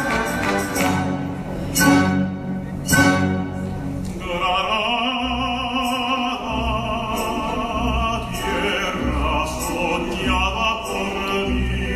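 Symphony orchestra playing, with two loud percussion strikes about two and three seconds in. From about four seconds on, an operatic tenor voice comes in over the orchestra, singing long held notes with vibrato.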